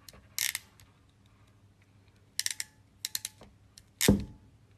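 Klauke K507 WF hand crimping tool crimping a wire ferrule: quick runs of sharp ratchet clicks as the handles are squeezed, three times, then a heavier clunk a little after four seconds.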